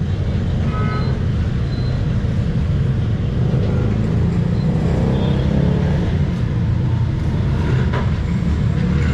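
Steady low rumble of passing street traffic and engines.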